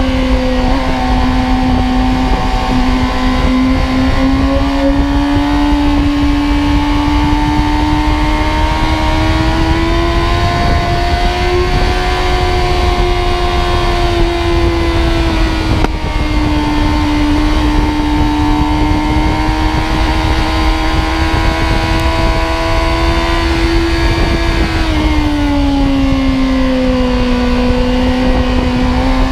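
Sport motorcycle's engine at high revs, heard from the bike itself while it is ridden at speed. Its pitch climbs slowly for the first dozen seconds, drops a little, holds, then falls further near the end before rising again. Wind noise rushes on the microphone underneath.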